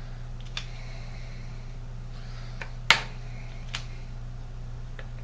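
Shotgun shells being popped into a shell grid board: a few light clicks and one sharper knock about three seconds in, over a steady low hum.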